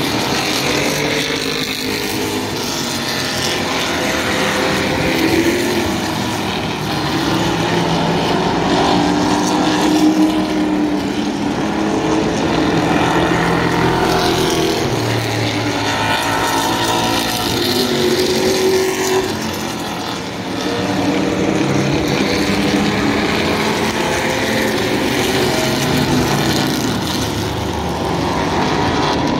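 A field of vintage stock cars, V8 and inline-six engines, racing around a short oval. Several engines overlap, rising and falling in pitch as the cars go by, with a brief lull about two-thirds of the way through.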